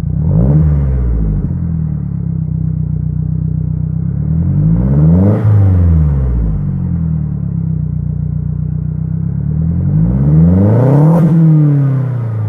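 2009 Mazdaspeed3's turbocharged 2.3-litre four-cylinder engine revved three times, each rev rising and falling back to a steady idle.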